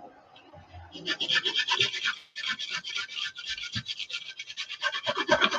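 Small piece of sandpaper rubbed in rapid back-and-forth strokes over the rim of a pressure cooker lid, a quick scratching that starts about a second in; it is smoothing a roughened spot where the rim has been prised at.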